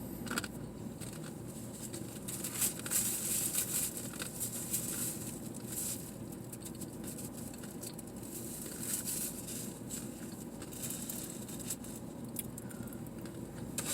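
Close-up chewing of food, with wet crackly mouth sounds coming in scattered bursts.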